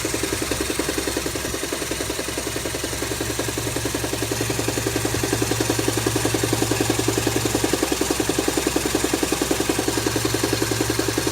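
Toyota 7A-FE 1.8-litre four-cylinder engine idling with a fast, regular knock that keeps time with the engine. The knock's cause is unexplained.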